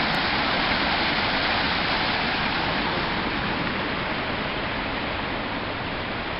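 Small rock garden waterfall splashing down into a pool: a steady rush of falling water that slowly fades.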